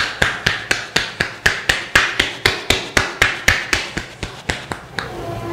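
A barber's hands striking a head in a fast percussive head massage: sharp, evenly spaced slaps about four a second, growing fainter and stopping about five seconds in.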